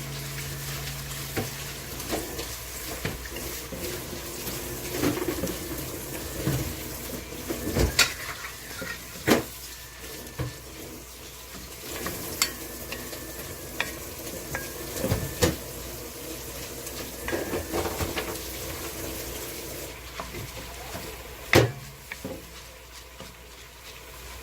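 Abalone and soaked rice frying in a pot for abalone porridge, sizzling steadily while being stirred. A spoon knocks and scrapes against the pot every second or two.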